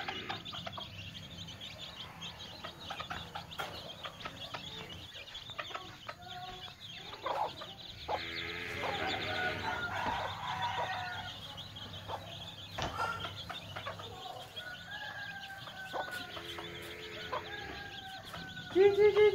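Chickens clucking and calling: repeated short calls that slide down in pitch, busiest in the middle of the stretch.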